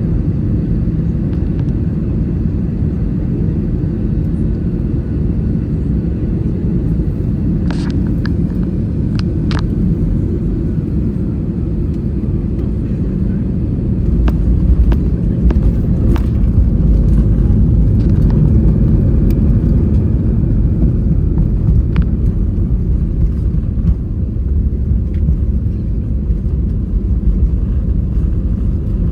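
Steady in-flight cabin noise of an Airbus A320: a deep rush of engine and airflow. The low rumble swells louder about halfway through, and a few faint clicks sound over it.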